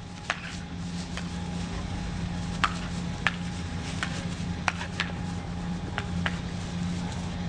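A dog leaping after bubbles: about nine irregular sharp clicks and taps spread over several seconds, under a steady low hum.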